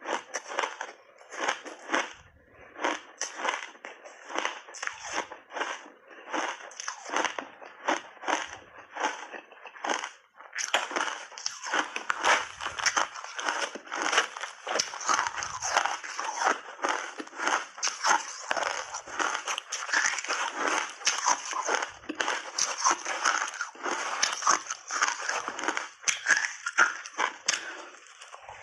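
Close-up crunching of someone chewing big bites of refrozen shaved ice. Separate crunches come a few to the second at first, then from about ten seconds in the crunching runs almost without a break.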